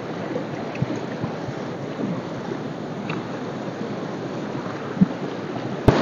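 Fast-flowing river rushing over stones, a steady hiss of moving water, with a few soft knocks and splashes of footsteps wading through the shallows. A single sharp click just before the end.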